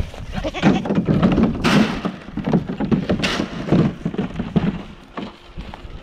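Grain feed poured into a plastic goat feed trough in two short rushes, with irregular thunks and knocks as goats crowd and jostle against the trough.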